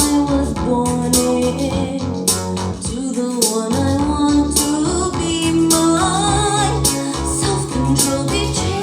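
Music: a song with guitar and bass over a steady beat, and a held melody line above them.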